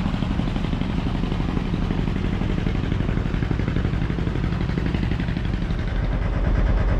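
A boat's engine running steadily under way, a low even throb heard from on board, getting louder about six seconds in.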